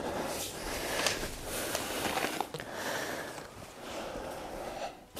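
Faint rustling and shuffling of people moving about on a judo mat, with a few small knocks as a plastic water bottle is picked up.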